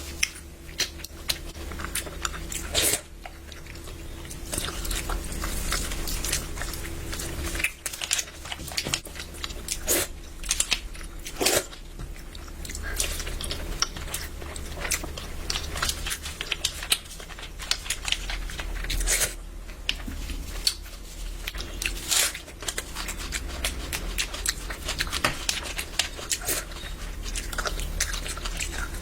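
A person eating close to the microphone: chewing and biting, with many short sharp mouth clicks, over a steady low hum.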